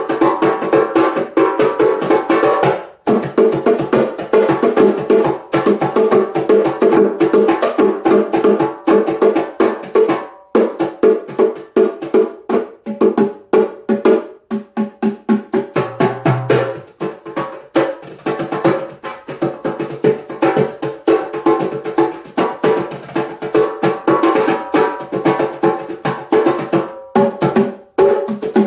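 Instrumental music: a fast, dense run of short percussive strokes over sustained pitched tones, with brief breaks about three seconds in, near ten and fourteen seconds, and near the end.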